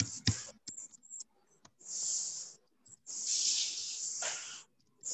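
Three bursts of hiss, the longest lasting about a second and a half, with a few sharp clicks in the first second.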